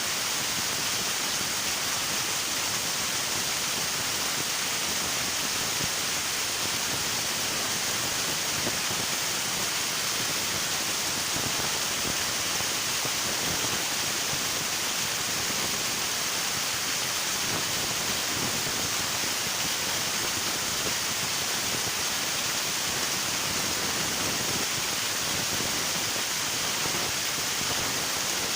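River water rushing steadily, an even hiss with no distinct splashes.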